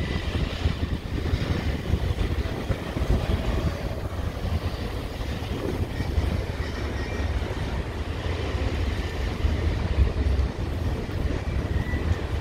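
Container wagons of a freight train rolling past on the rails, a steady low rumble.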